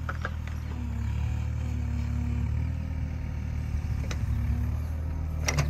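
Mini excavator engine running steadily under load, with a higher hum that swells and fades as the arm works, and a few sharp clanks near the end.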